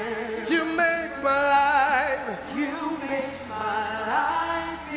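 Live worship song: a voice sings a wavering, ornamented melody with vibrato over held musical tones.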